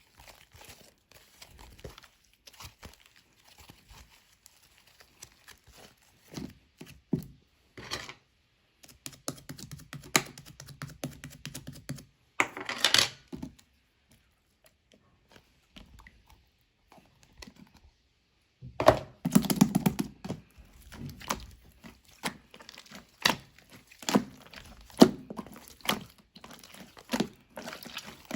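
Hands playing with slime that has gone soft and melty: squishing, stretching and poking it, giving irregular sticky crackles, pops and clicks. There is a quieter pause about halfway through, after which the crackling picks up again and is louder.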